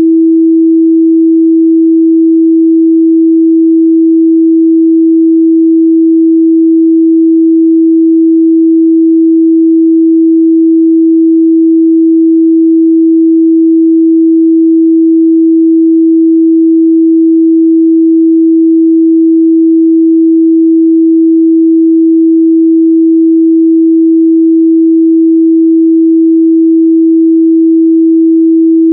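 Continuous 326 Hz sine-wave test tone, a single steady pure pitch held at constant loud level, used to check speaker and headphone midrange response.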